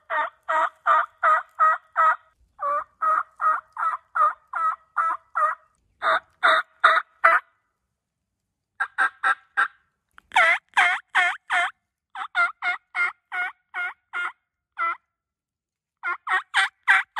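Turkey mouth call worked with cupped hands, sounding runs of hen-style yelps, about three to four a second, in several strings separated by short pauses: locator calling to get a turkey to answer.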